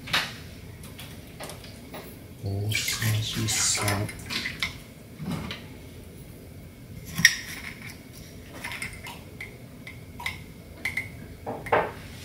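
Dishes and kitchen utensils clinking and knocking as they are handled, in scattered strikes. A louder, rustling patch lasts about a second and a half a few seconds in.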